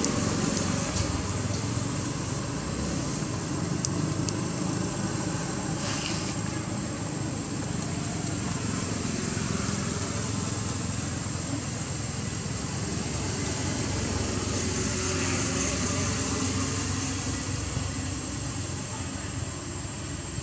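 Steady outdoor background rumble, like distant road traffic, with a thin, high, steady whine over it.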